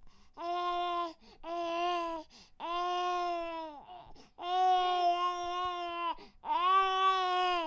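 Infant crying: five long, steady wails, each about a second long, with short breaths between them.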